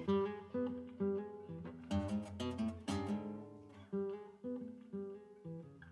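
Background music: an acoustic guitar playing plucked notes and strummed chords, each note fading out after it is struck.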